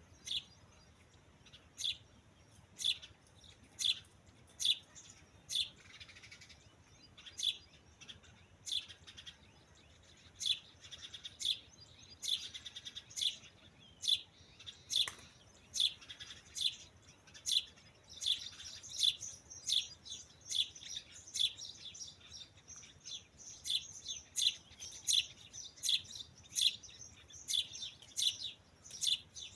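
Birds chirping: short, high chirps repeated about once a second, growing more frequent in the second half with a busier twittering underneath.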